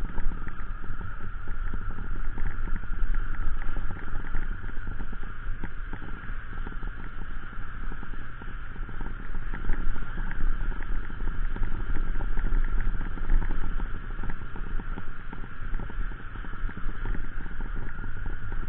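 Motorcycle ridden uphill over a rough, rocky dirt track: steady engine noise under constant rattling and knocking from the bumps, with a deep steady rumble underneath.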